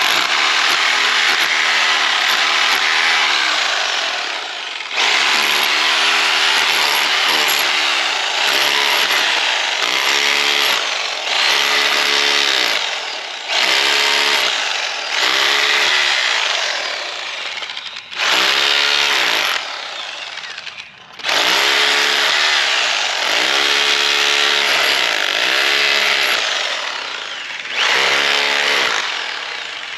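Bauer 4-in-1 hammer drill hammering into concrete, running in runs of a few seconds with brief pauses between, its motor pitch sagging and recovering as it bites.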